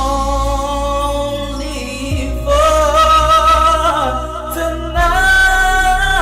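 Slow R&B music: long held chords over a deep bass, changing about two seconds in and again about five seconds in, with wordless singing.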